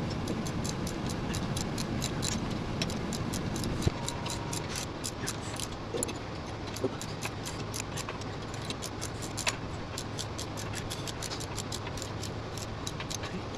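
Ratchet wrench clicking in quick runs as the mini bike's handlebar clamp bolts are tightened down, with a few louder single clicks along the way.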